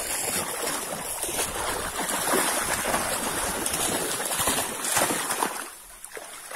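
Muddy floodwater splashing and sloshing as a dog wades through deep water on a flooded path; the splashing dies down about a second before the end.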